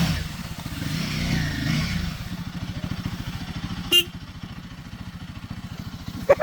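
Motorcycle engine idling with a rapid, even low putter, and a single sharp click about four seconds in.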